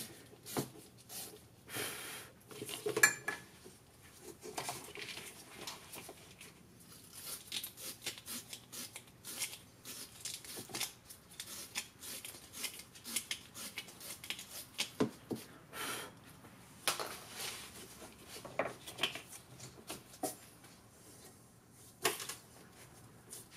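Hand tools and small metal parts being handled: scattered light clicks, clinks and rattles, the sharpest about three seconds in.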